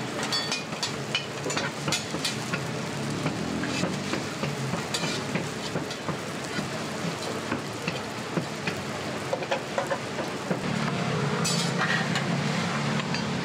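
Scallion pancakes frying with a steady sizzle, a metal spatula clicking and scraping against the pan many times. A low steady hum underneath gets louder about three-quarters of the way through.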